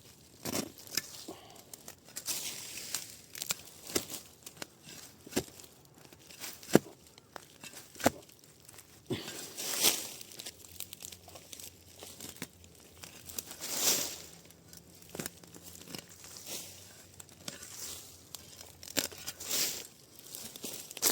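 Digging up a bamboo shoot: irregular rustling and crunching of dry leaves and soil, with scattered sharp knocks and a few longer scraping swishes.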